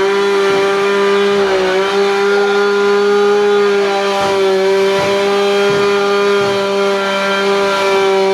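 Small engine running at steady high revs, held at an almost even pitch throughout.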